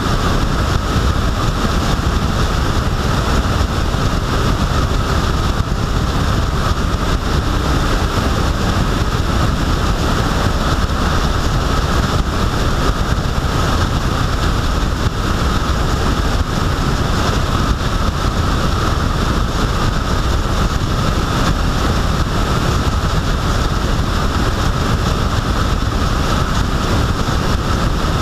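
Steady wind rushing over the microphone of a vehicle travelling at road speed, with engine and tyre noise underneath, unchanging throughout.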